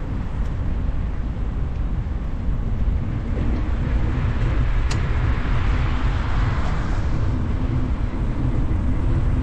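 Wind rumbling on the microphone of a moving rider, with a car passing on the road alongside, its tyre hiss swelling about halfway through and then fading.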